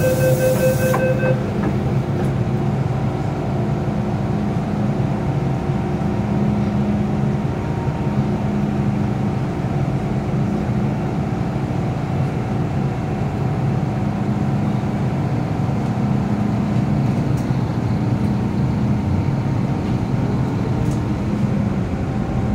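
Inside an MTR M-train carriage: door-warning beeps end about a second in as the doors close, then the train pulls away and runs on with a steady hum of traction motors and wheels. A faint tone rises near the end.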